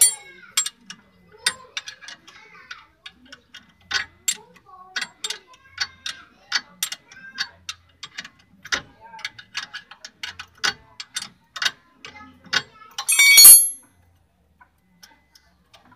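Irregular metallic clicks and clinks of a wrench working the ball-joint nut on a Hyundai Starex's lower suspension arm, one or two a second, with a brief louder metal rattle near the end.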